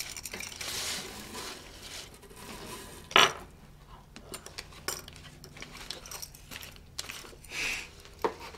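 Handling noises: rustling of fabric and packaging in a cardboard box, with small metallic clinks from a metal keychain bottle opener on a table and one loud sharp clack about three seconds in.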